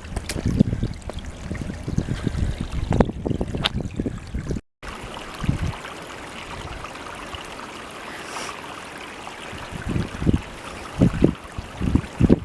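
Wind buffeting the microphone with scattered thumps, then, after an abrupt cut, a steady rushing of running water from a small stream, with a few thumps near the end.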